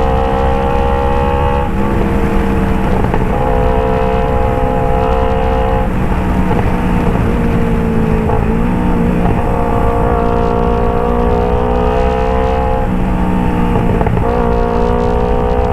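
Kawasaki Ninja 250 FI parallel-twin engine through an aftermarket Phoenix exhaust, running at steady revs on the move. The engine note dips and picks up again several times, as with the throttle easing and gear changes.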